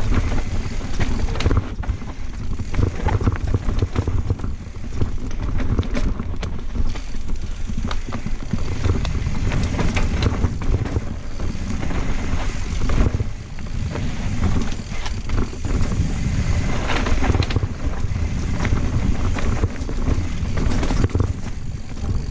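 Santa Cruz Blur mountain bike rolling fast down dirt singletrack, with wind buffeting the action camera's microphone. Tyre noise and a steady stream of short clicks and knocks from the bike as it rattles over roots and rocks.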